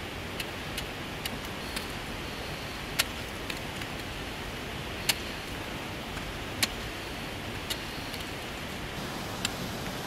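Ice tools and crampons striking the ice of a frozen waterfall as a climber moves up it: about a dozen sharp, short hits at uneven intervals, the loudest about three, five and six and a half seconds in, over a steady hiss.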